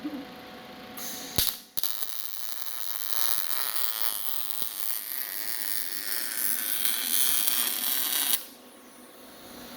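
MIG welding arc running on mild steel as a bead is laid. It strikes about a second in with a click, breaks briefly, then holds as a steady hiss for about seven seconds and stops suddenly near the end.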